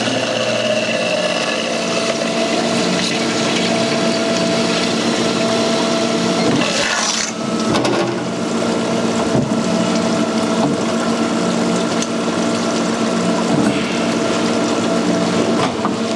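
Machinery running steadily, a motor or pump giving a constant hum over a noisy hiss, with a brief dip about seven seconds in.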